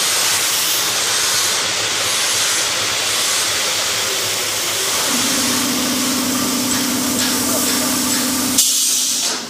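Compressed air hissing steadily and loudly from the air line of a concrete bucket's pneumatic gate cylinder. A low steady hum joins about five seconds in. Near the end a sharp click, after which only a thinner, higher hiss remains.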